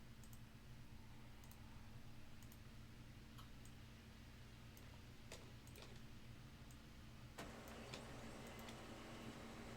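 Near silence, with a low steady hum and a few faint, scattered computer mouse and keyboard clicks.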